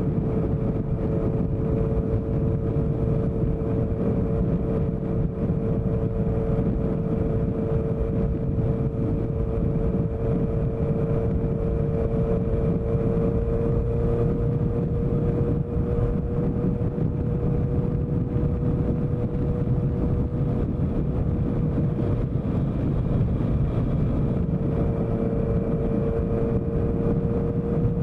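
Honda CBR650F's inline-four engine running through a CS Racing exhaust, holding a steady engine note at an even speed. The pitch drifts only slightly, dipping a little past the middle and picking up again.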